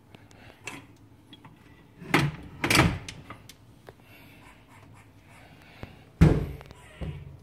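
A squirrel's strange noise: short, harsh bursts, two close together about two seconds in and a third about six seconds in.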